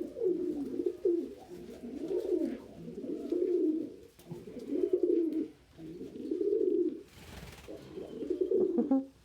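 Domestic pigeon cooing in a near-continuous run of low, rising-and-falling coos. It is typical of a cock pigeon courting, cooing as he drives a hen.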